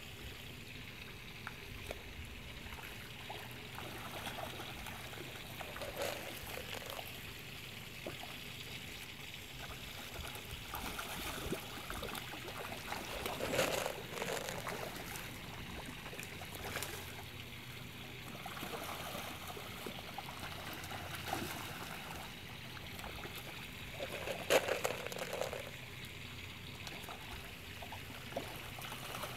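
Steady trickling water in a hatchery pond, with fish splashing at the surface in short bursts as they feed. The loudest splashing comes at about 13 and 24 seconds in.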